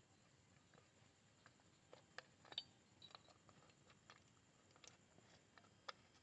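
Near silence with a few faint, irregular small clicks and taps of hands handling a motorcycle headlight bulb holder and its wiring; the loudest click comes about two and a half seconds in.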